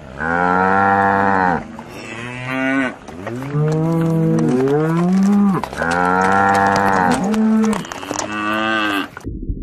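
Cattle mooing: a series of about six loud moos, some of them rising in pitch, cut off abruptly near the end.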